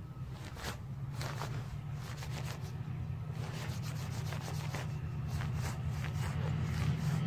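Class 68 diesel locomotive approaching as a light engine, its low engine drone growing steadily louder. Rubbing and clicking noises close to the microphone throughout.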